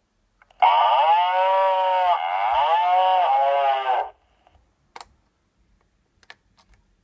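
Polaroid 636 Talking Camera playing one of its factory-preset sounds through its small built-in speaker: a single pitched, wavering call lasting about three and a half seconds. A few short clicks follow as the camera is handled.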